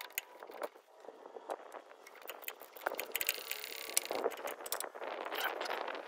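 Faint clicks and scrapes of a wrench and metal fittings being handled, with a short run of fast clicks about three seconds in.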